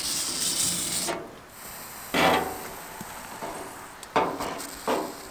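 Aerosol penetrating oil hissing onto a seized car door hinge for about a second, cutting off sharply. Then three short creaking knocks from the stiff hinge and door metal, about two seconds apart.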